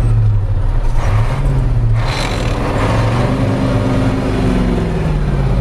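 Old truck's engine running, heard from inside the cab during a gear change: the steady note drops and shifts about a second in, with a short hiss about two seconds in, then settles back to its steady hum near the end.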